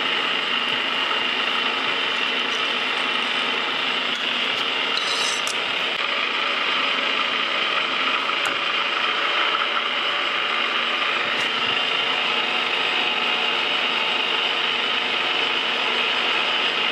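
Metal lathe running slowly on a threading pass: a steady mechanical whir and gear-train hum while a single-point tool cuts a left-hand modified square thread in a long shaft supported by a follow rest. A short higher-pitched hiss comes about five seconds in.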